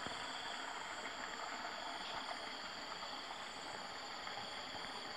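Steady outdoor chorus of insects buzzing at several fixed high pitches, with a faint pulsing high note, over a low even hiss of open-air background.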